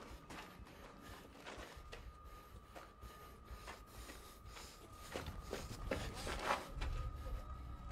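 Soft footsteps and rustling of combat gear and rifle as a soldier creeps forward, with a faint steady high tone underneath. A low rumble comes in near the end.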